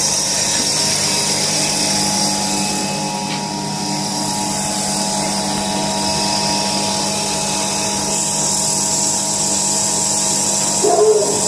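Floating fish feed pellet extruder running with its electric motor: a steady mechanical drone with a constant hum and a high whine.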